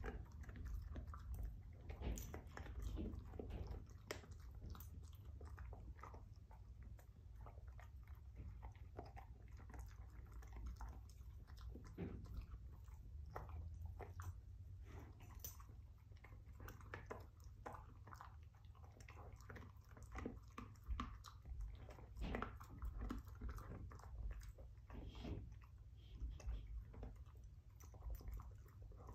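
A dog crunching and chewing on a rawhide bone, with irregular sharp cracks and crunches throughout.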